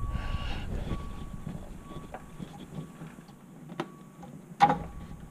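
Quiet clicks and scrapes of a hand unscrewing a Ford GT350's yellow composite oil drain plug from underneath the car, with one sharper click near the end.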